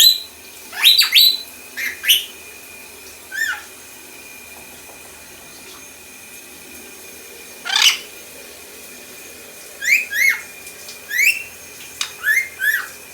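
Pet lorikeet giving short, sharp whistles and chirps that sweep up and down in pitch, beep-like mimicry of R2-D2, in clusters with a pause of a few seconds midway.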